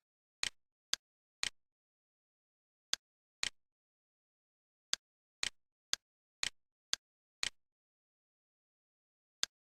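Computer mouse clicks with dead silence between them: fourteen sharp clicks, mostly in pairs about half a second apart, with pauses of one to two seconds between groups.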